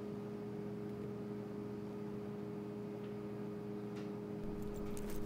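Quiet room tone with a steady low hum, and a few faint ticks near the end.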